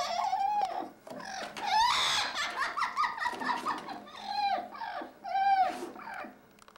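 Green parrot calling and chattering: a quick run of short pitched whistles and squawks, many rising and falling, with a harsher squawk about two seconds in.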